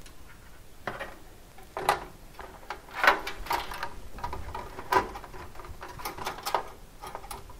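A micro ATX motherboard being set into a metal PC case by hand: a scattering of irregular light clicks and knocks as the board and fingers bump against the case, the sharpest about two, three and five seconds in.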